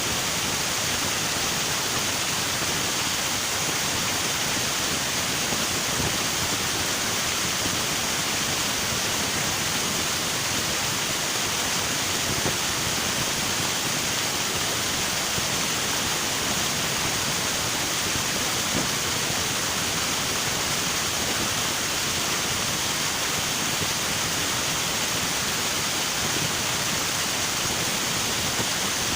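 River water rushing over rocks, a steady unbroken hiss.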